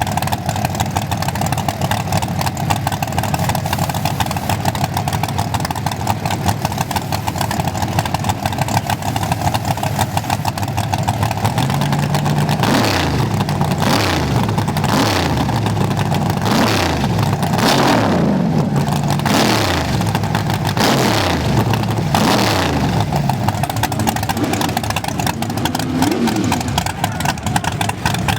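Race car engine running at a steady rumble, then about twelve seconds in a hard acceleration: the pitch climbs and drops again and again, a run up through the gears, before easing off near the end.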